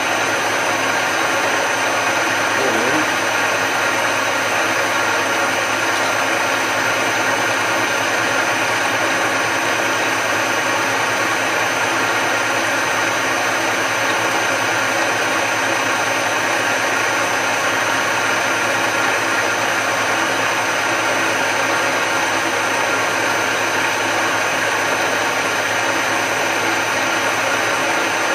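Milling machine running steadily with a cutter turning, an even motor whine with a few steady tones and no breaks in level.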